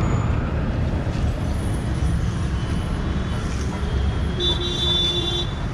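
Steady rumble of passing road traffic, with a brief steady tone, like a distant horn, about four and a half seconds in.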